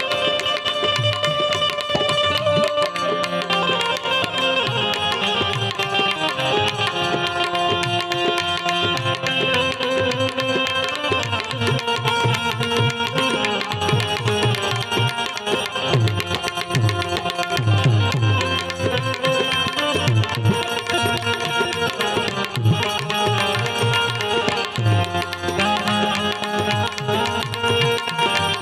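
Instrumental interlude of a Gujarati bhajan: a harmonium plays the tune in sustained notes, and a tabla keeps a steady rhythm with repeated low bass strokes underneath.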